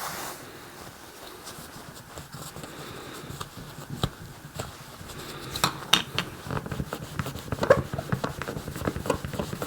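Cloth rubbing over a hard clear plastic toy canopy to buff out scratches, with light irregular clicks and taps of the plastic being handled, busier in the second half.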